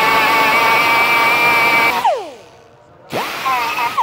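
Pneumatic right-angle die grinder with a small sanding disc running at speed on a steel spacer half, cleaning off burrs, a steady high whine. About two seconds in the trigger is released and it winds down, then it spins up again about a second later, runs briefly with its pitch wavering under load, and winds down again at the end.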